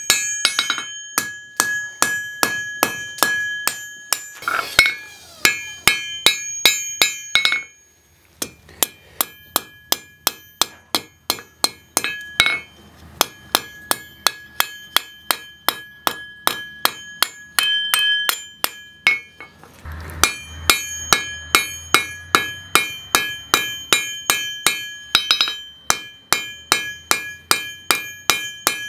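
Hand hammer striking red-hot rebar on a steel anvil in a steady run of blows, about three a second, each one ringing. The anvil holds a high ring between strikes. The hammering pauses briefly about eight seconds in and again about twenty seconds in.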